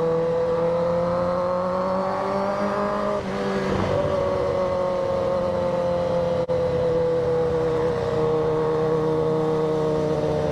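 Kawasaki ZX-10R's inline-four engine running steadily under the rider. Its pitch climbs gently, breaks briefly about three seconds in, then slowly falls for the rest of the stretch.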